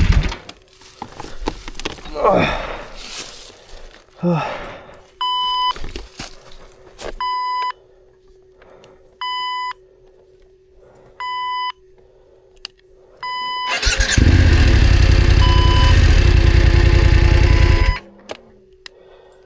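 BMW F900GS motorcycle's parallel-twin engine cuts out. An electronic beep then sounds five times, about once every two seconds. About 14 s in, the engine starts and runs for about four seconds before stopping again, and one more beep follows near the end.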